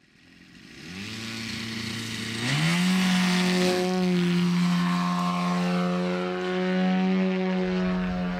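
Four-cylinder engine and propeller of a large-scale model Extra 300 LX aerobatic plane, growing louder over the first few seconds, rising in pitch about two and a half seconds in as it revs up, then running steadily at the higher speed.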